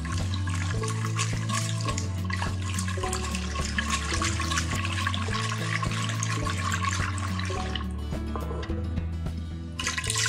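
A whisk beating a thin mixture of egg yolk, sugar, cornstarch and milk in an enamel pot, a quick swishing and clicking of strokes; it stops about eight seconds in, and just before the end milk starts pouring into the pot. Background music with a steady bass line plays throughout.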